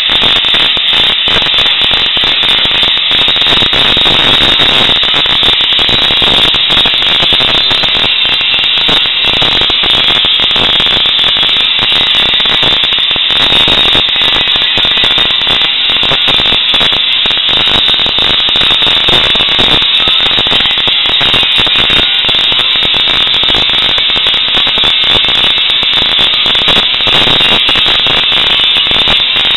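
Electric arc welding on steel: the welding arc crackling and hissing steadily with no breaks.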